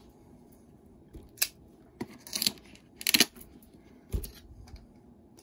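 Cardboard and plastic packaging of a trading-card box being handled: a handful of short rustles and clicks, the loudest about three seconds in.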